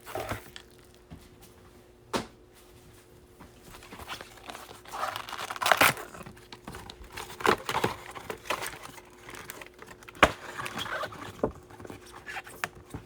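Plastic wrapping of trading-card packs crinkling and tearing in scattered bursts as packs are opened, with a few sharp clicks.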